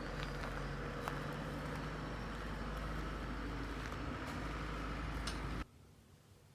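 Volvo L90B wheel loader's diesel engine running steadily, with a low hum and a few light clicks over it. The sound cuts off abruptly near the end.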